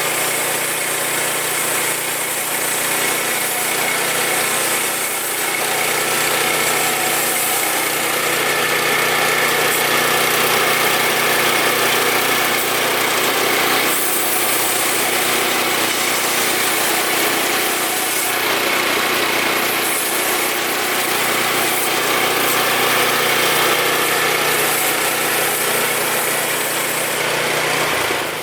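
Woodland Mills HM122 portable bandsaw mill running steadily on its 9.5 hp engine, a loud even machine noise with a strong high hiss. The sound dips briefly near the end.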